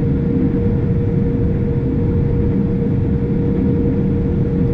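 Case IH Axial-Flow 7088 combine running steadily while harvesting wheat: an even, loud drone with a constant whine over it.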